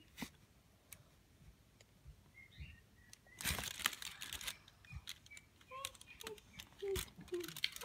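Cardboard advent calendar being handled: quiet rustling of the card and scattered small clicks, with a louder burst of rustling about three and a half seconds in.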